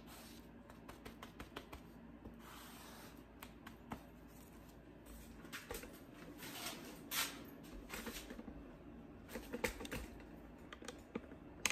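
Plastic spreader scraping and tapping on a paper mixing board while mixing and scooping up Evercoat Metal Glaze body filler: faint irregular clicks and short scrapes.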